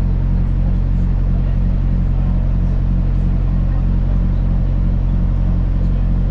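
Airport apron bus engine running steadily, heard from inside the bus: a constant low drone with a regular pulse at about four a second.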